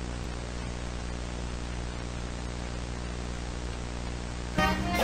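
Steady static hiss with a low electrical hum underneath, unchanging in level; music comes in near the end.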